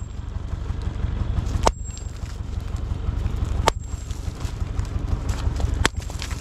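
Three heavy blows of a steel axe head on a large stone slab, about two seconds apart, each a sharp crack with a brief high ring, breaking the stone apart. A steady low rumble runs underneath.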